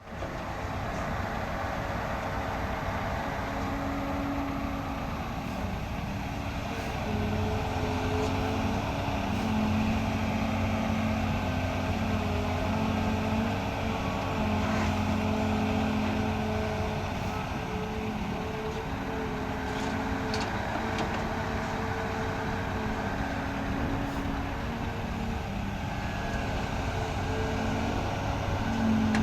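Excavator's diesel engine running under working load, steady throughout, growing louder and slightly higher about seven seconds in and then shifting up and down in pitch as the machine works, with a few faint clanks.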